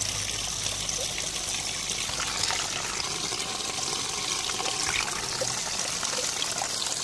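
Backyard fountain pond's waterfall spilling over rocks into the pond, a steady trickling and splashing of water.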